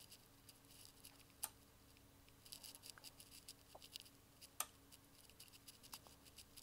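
Near silence: a faint low electrical hum with a few soft clicks, two of them sharper, about a second and a half and four and a half seconds in.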